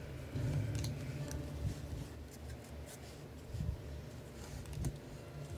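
Stack of Topps baseball cards being flipped through by hand: card stock sliding and rubbing against the stack, with a few faint clicks as cards are moved to the back.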